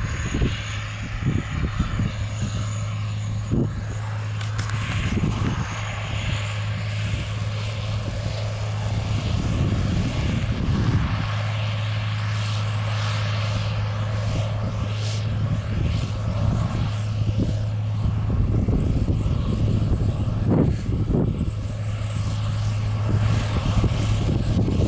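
Caterpillar Challenger MT865C rubber-tracked tractor's diesel engine under load, pulling a Sunflower 1435 disk harrow: a steady low drone that grows slightly louder toward the end as the tractor comes closer.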